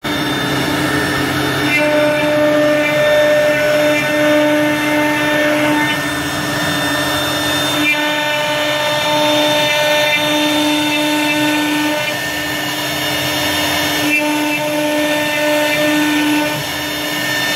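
Three-spindle CNC wood router running, one spindle's bit cutting into a wood panel. Its steady whine and cutting noise carry under several humming tones that switch on and off every couple of seconds as the head moves along the cut.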